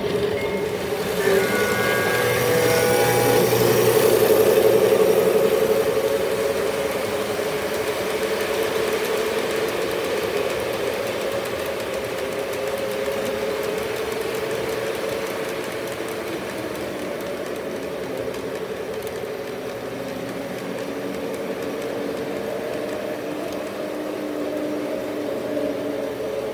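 Three-rail model trains running on the layout's track: a steady whir and rumble of wheels and motors that swells about four seconds in and then settles. A few short high tones sound about a second in.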